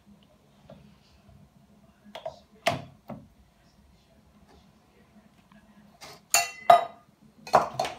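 Clinks and knocks of a glass bottle and kitchenware set down and handled on a countertop: a few sharp knocks about two to three seconds in, then louder clinks with a brief ringing tone around six to seven seconds, and more knocks near the end.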